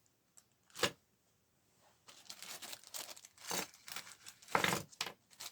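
Crinkling and rustling of packaging being handled close by: one sharp crackle about a second in, then irregular rustling from about two seconds on.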